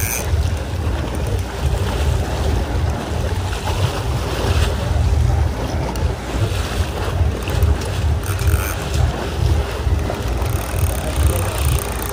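Wind buffeting the microphone on a boat at sea: a gusty low rumble, with the wash of water and boat noise beneath it.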